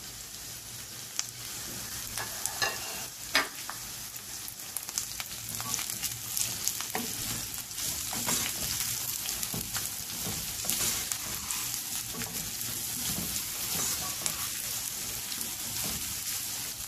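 Chicken strips, sliced capsicum and green chillies sizzling in oil in a nonstick wok while being stir-fried on low heat, the sizzle getting a little louder several seconds in. A few sharp knocks of the spatula against the pan in the first few seconds.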